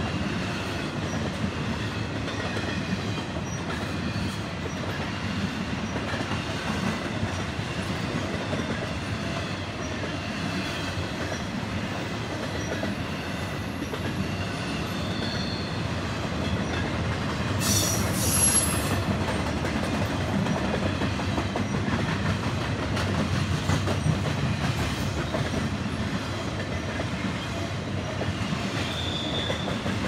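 Empty intermodal spine cars of a freight train rolling past: a steady rumble and clickety-clack of wheels on the rails. Brief wheel squeals sound now and then, the sharpest and highest about two-thirds of the way through.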